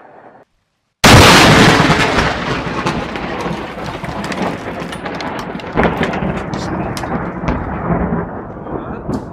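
Very close lightning strike: a sudden, very loud crack about a second in, then thunder rumbling with scattered crackles as it slowly dies away.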